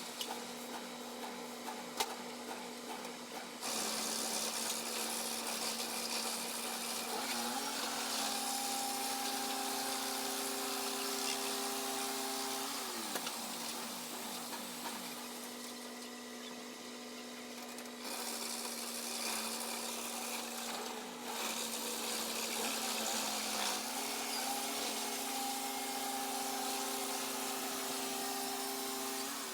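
Turner Mills portable bandsaw mill running and cutting a log, its engine holding a steady pitch under a hissing saw cut. The engine speeds up about 7 s in and again near the end, and drops back in between. The cutting noise grows louder about 4 s in and eases for a couple of seconds in the middle.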